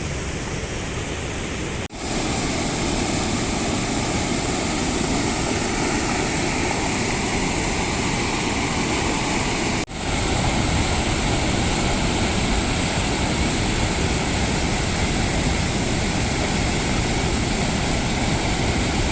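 Steady rush of water falling and flowing at a waterfall, cut off for an instant about two seconds in and again about ten seconds in.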